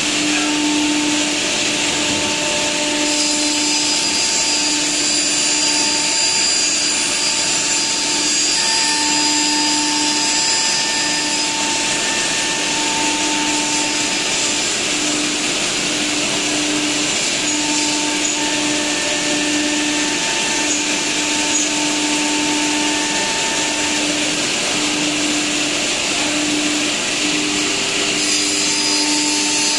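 CNC router with a tilted saw-blade head cutting a white-faced panel, the saw spindle and dust extraction running steadily and loudly. A humming tone within the noise wavers on and off unevenly as the head moves through the cut.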